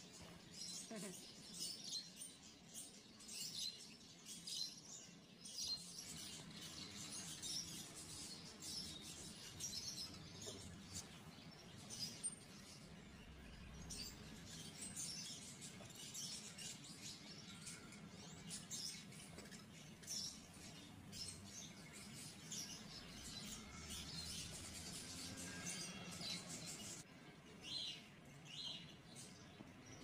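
Budgerigars chirping and chattering: a stream of short, high chirps, fairly faint.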